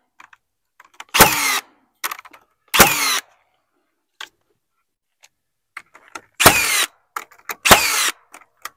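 A cordless battery-powered nailer tacking a pressure-treated 2x4 rafter in place. It fires four nails in two pairs, each shot a sharp bang followed by a short falling whine, with another shot starting right at the end.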